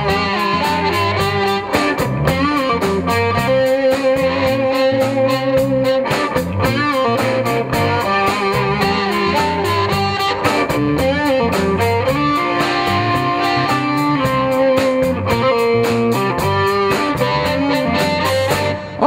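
Live electric blues band playing an instrumental break between verses: electric guitars and drums keeping a steady beat, with an amplified blues harmonica played into a cupped microphone, holding long notes.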